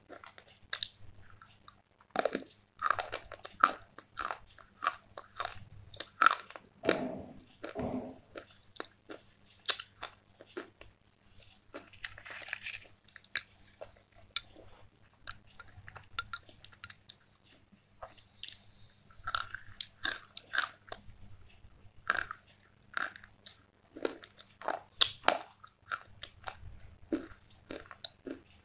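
Close-miked crunching and chewing of slate pencil: irregular sharp crunches as the brittle chalky stick is ground between the teeth, some louder bites among softer chewing.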